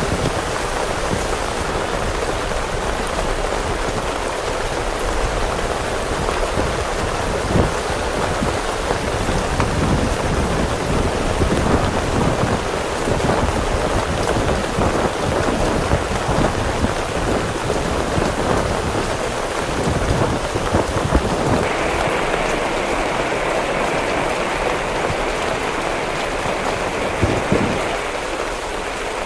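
Heavy rain pouring steadily, with a dense patter of hard drops. About two-thirds of the way through, the hiss turns brighter.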